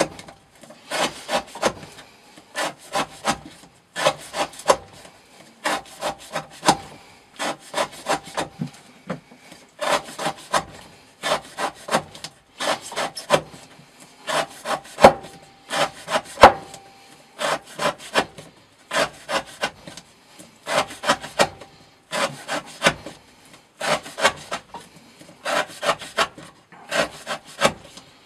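Elmax-steel knife blade sawing through rope in repeated cuts, each cut a cluster of several quick rasping strokes, about one cut every two seconds. This is an edge-wear test of the blade.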